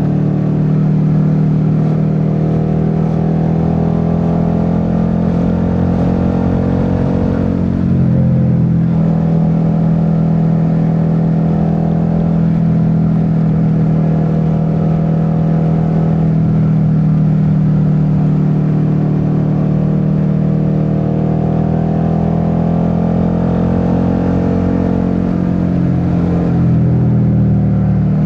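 Suzuki SV650's V-twin engine running steadily under way on the road, with a brief change in revs about eight seconds in and another shift in engine pitch near the end.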